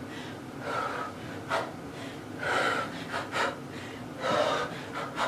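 A woman breathing hard mid-workout: sharp, forceful exhales with each punch, a longer breath about every two seconds and quick short puffs in between.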